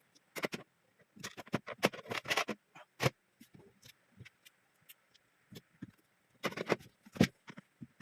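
Irregular series of sharp clicks, knocks and scrapes, in clusters with short gaps between, the loudest knock about seven seconds in.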